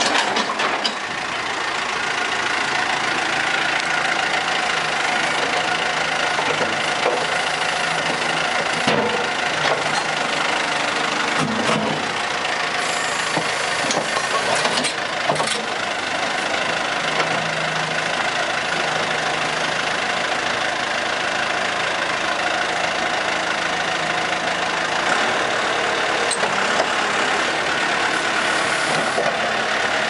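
JCB 3CX backhoe loader's diesel engine running steadily while its hydraulics are worked, with a few short knocks.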